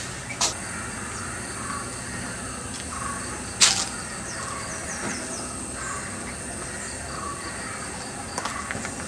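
Outdoor ambience: birds calling, over a steady high-pitched whine. It is broken by a sharp click about half a second in and a louder one about three and a half seconds in.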